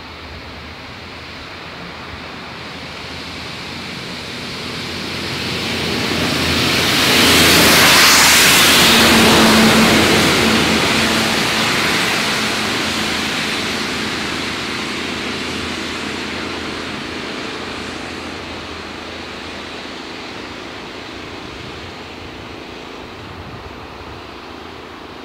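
Class 37 diesel locomotive, its English Electric V12 engine working, hauling an inspection saloon past at close range: the engine and wheel noise build, peak about eight seconds in, then fade slowly as the train moves on.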